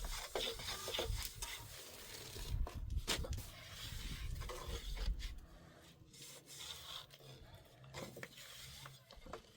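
Rubbing and scraping with a few sharp knocks, quieter in the second half.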